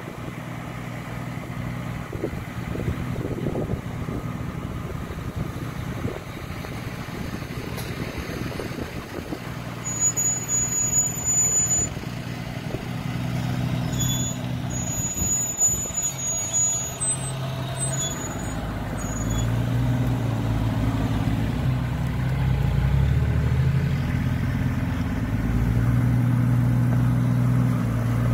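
Lifted Jeep Cherokee XJ's engine running at low revs as it crawls up a rocky step, growing louder over the second half with some revving. A few brief high-pitched squeals come near the middle.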